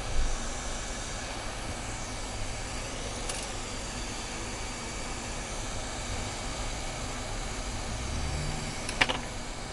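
Hot-air rework gun blowing a steady hiss of hot air onto a circuit board, with a low thump just after the start and a sharp click about nine seconds in.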